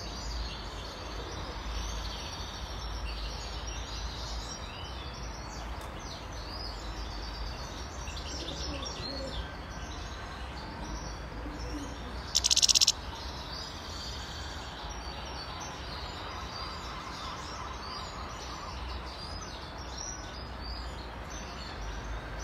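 Wild-caught European goldfinch singing a rapid, twittering song over a steady low rumble. About halfway through, a brief loud buzzing burst lasting about half a second stands out above the song.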